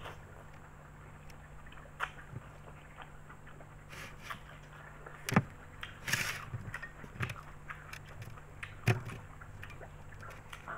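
Close-up eating sounds of a person chewing spaghetti and raw kenikir leaves: scattered wet clicks and smacks of the mouth, with a brief louder burst about six seconds in, over a steady low hum.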